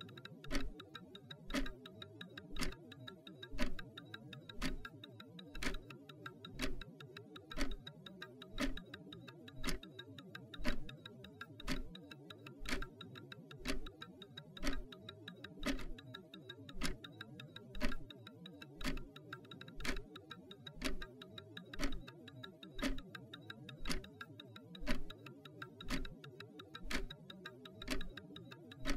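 Clockwork ticking steadily at about two ticks a second, alternating stronger and weaker in a tick-tock, over a low steady background layer.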